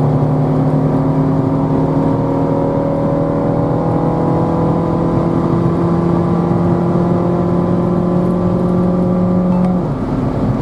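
Small car's engine heard from inside the cabin, pulling steadily with its note slowly rising as the car accelerates back up to motorway speed, over steady tyre and road noise. Near the end the engine note drops away suddenly.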